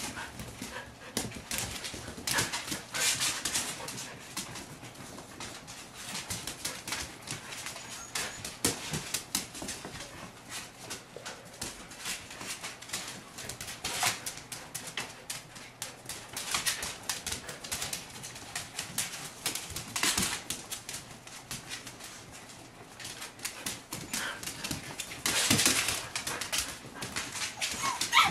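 Samoyed mother and her six-week-old puppies at play: puppies whimpering and yipping, with many sharp claw clicks and scrabbling on a wooden floor. The loudest scuffle comes a little past three-quarters of the way through.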